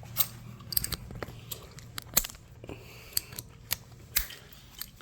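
Scattered sharp clicks and light rustling of hands handling things, irregular and a dozen or so in all, over a faint steady low hum.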